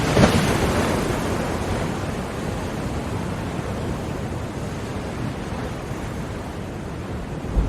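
Ocean surf: a wave breaks just after the start and its wash slowly fades, then the next wave swells near the end.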